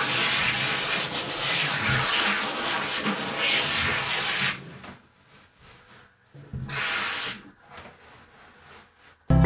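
PurSteam PS581X handheld steam cleaner hissing as its steam head is pressed and rubbed across wallpaper to loosen it. The hiss cuts off about four and a half seconds in, and a shorter burst follows about two seconds later.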